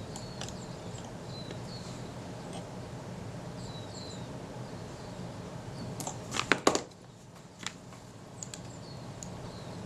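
A quick cluster of sharp small clicks about six to seven seconds in, and one more a moment later, from small tools and camera parts being handled while adjusting a camera's rangefinder. Under them is a steady low hum, with faint short bird chirps here and there.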